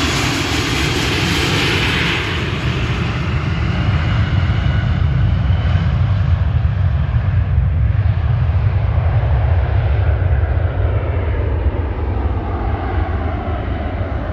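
Jet airliner's engines passing close by: a loud high-pitched whine dies away over the first few seconds, leaving a steady deep rumble.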